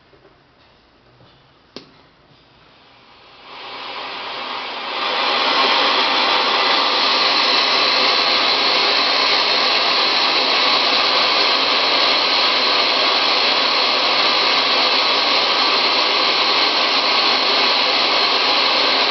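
A single click about two seconds in, then a steady loud rushing hiss that swells in from about three and a half seconds and holds at full level from about five seconds on.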